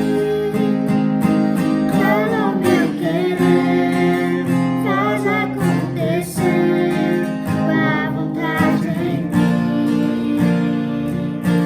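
Worship music: acoustic guitar strumming sustained chords, with a wavering melody line carrying vibrato over it in three short phrases.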